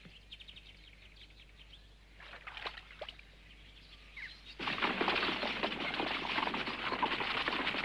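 Faint swamp ambience with a few scattered bird chirps. About four and a half seconds in, a dense, much louder clatter of many horses' hooves and a horse-drawn wagon starts and carries on.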